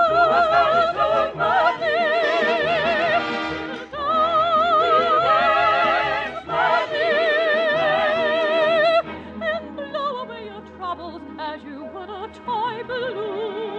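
Operatic soprano singing long high notes with a wide vibrato over an orchestra. About nine seconds in, the voice stops and the orchestra carries on more softly.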